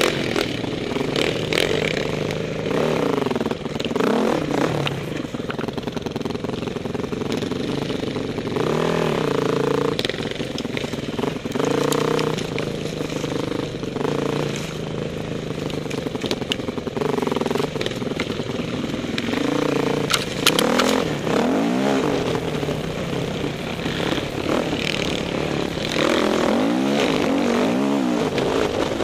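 Off-road dirt bike engines revving up and down over and over as they ride a rough singletrack trail, with scattered sharp knocks and clatter.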